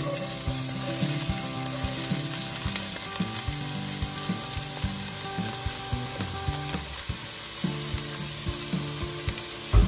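Finely chopped onion sizzling steadily in hot olive oil in a stainless-steel pot, with light clicks of a silicone spatula against the bowl and pot as the onion is scraped in.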